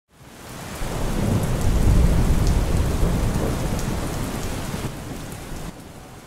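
Rain falling with a long roll of thunder that swells over the first two seconds and slowly fades away.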